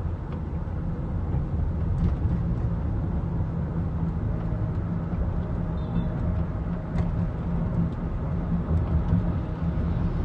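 2007 Toyota Camry Hybrid running, a steady low rumble with a few faint ticks over it.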